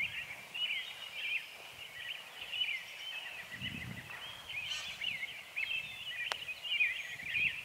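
A chorus of many small birds chirping and chattering without pause. About six seconds in, one sharp click, a club striking a golf ball on a chip shot.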